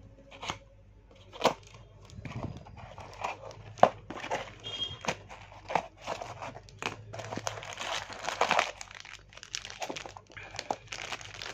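A small cardboard box and its plastic wrap being torn open by hand, then a plastic zip-lock bag handled: irregular crinkling and tearing, with a few sharp snaps.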